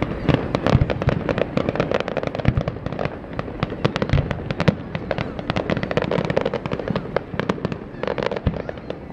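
Aerial fireworks display: a dense, rapid run of bangs and crackles from bursting shells, many reports a second.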